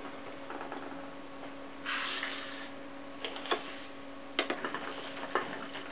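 Chia seeds spooned into plastic water bottles: a short rattle of seeds pouring about two seconds in, then several light clicks and taps of the spoon against the bottles.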